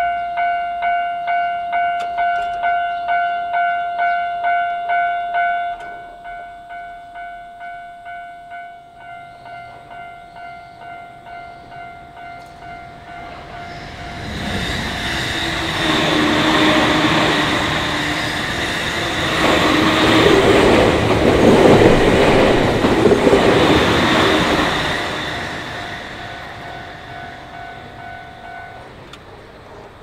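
Japanese railway crossing warning bell clanging about twice a second, the 'kan-kan' of a crossing whose barriers are down. It becomes quieter about six seconds in. Midway an electric commuter train rumbles past, loudest about two-thirds of the way through, then fades. The bell stops near the end as the crossing clears.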